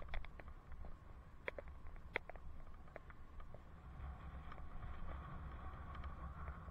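Bicycle riding on an asphalt path, heard from a helmet camera: a low rumble of tyres and wind on the microphone, with scattered clicks, the loudest just after the start and about two seconds in.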